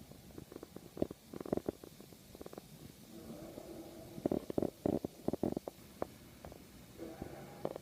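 The unexplained 'strange sound in the sky', heard outside at night: a low, drawn-out trumpet-like droning tone that swells about three seconds in and again near the end. Many short sharp clicks and knocks run through it.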